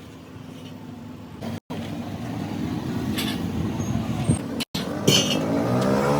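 A motor running with a low, steady hum that gets louder and starts rising in pitch near the end, as if speeding up. Short metallic clinks sound over it, and the sound cuts out briefly twice.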